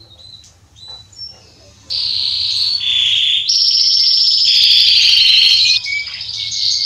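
Male Belgian canary singing: a few soft chirps, then about two seconds in a loud, unbroken song of rapid rolling trills that switch pitch every second or so.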